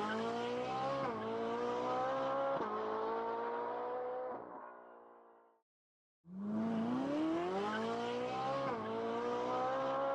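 Car engine sound accelerating, its pitch climbing and dropping at each gear change. It fades out about halfway, then the same run starts over about a second later.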